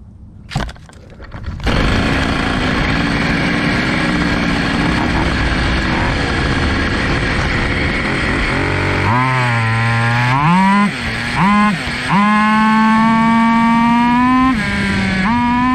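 Zenoah G300PUM two-stroke engine on a Goped Sport scooter, fitted with a WT-668 carburetor, starting about two seconds in and running roughly at low revs. From about nine seconds the revs climb steeply as the scooter accelerates at full throttle, drop briefly twice, then hold at a high, steady scream, with one short dip near the end.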